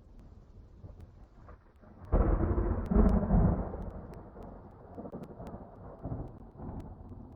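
Thunder: a low rumble, then a sudden loud clap about two seconds in that rolls and rumbles away over the following seconds.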